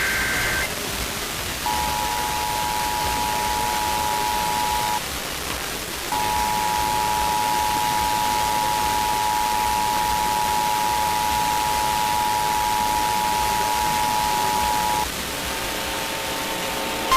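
The tail of an Emergency Alert System SAME header data burst, then the EAS two-tone attention signal sounding for about three seconds, breaking off for about a second, and resuming for about nine more seconds, all over steady radio static hiss.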